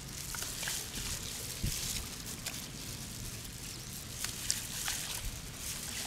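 Small loose pearls clicking and rattling against one another in a gloved palm as they are handled, with a light crinkle of the thin plastic glove; the clicks are quick and scattered.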